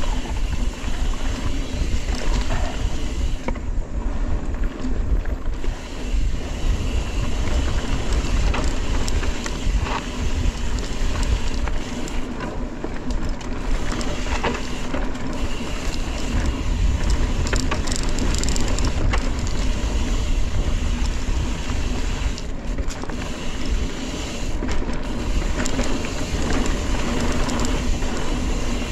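Mountain bike riding down a dirt trail: wind rushing over the camera microphone, tyres rolling on the ground, and scattered knocks as the bike goes over rough terrain.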